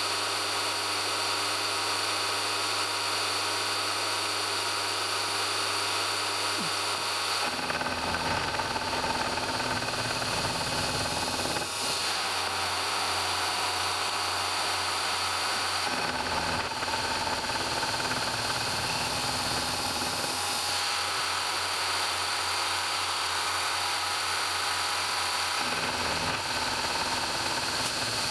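Milling machine spindle running a gear cutter that is cutting teeth into a metal gear blank, a steady machine sound whose low hum changes every four to five seconds.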